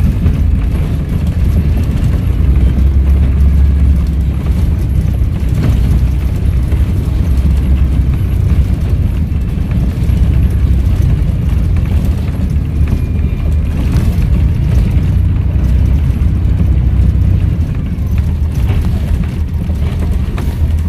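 Volvo B7RLE bus's six-cylinder turbodiesel engine running with its Voith automatic gearbox, a steady deep rumble that swells and eases a little as the bus drives along.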